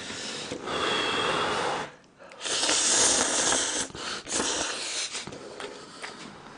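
A man slurping up a mouthful of hot ramen noodles: one long, loud slurp about two and a half seconds in, with breathy noises before it and a shorter one after.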